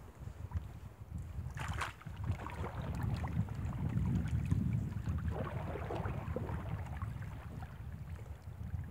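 Small waves lapping and splashing against the shoreline rocks, with wind noise on the microphone.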